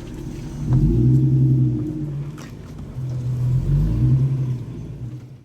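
Off-road vehicle engine running under load, surging in revs twice, about three seconds apart, then fading and cutting off at the end.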